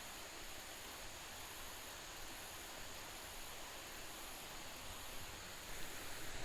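Faint, steady hiss of outdoor creek ambience, with a thin high steady tone and a faint regular pulsing above it; a few soft knocks or splashes near the end.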